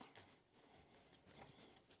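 Near silence: room tone with a few faint, light clicks.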